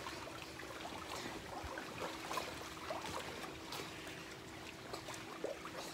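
Swimming-pool water lapping and trickling, with small splashes from swimmers moving in it, over a faint steady hum.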